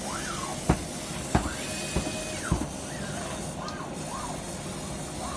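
Laser cutting machine's gantry motors whining as the cutting head travels over the fabric, each move's pitch rising, holding and falling again, over a steady hiss. Four sharp knocks in the first three seconds are the loudest sounds.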